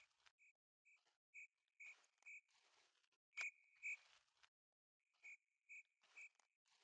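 Faint, short high-pitched calls of a frog, repeating about twice a second in runs with brief pauses, over soft footsteps.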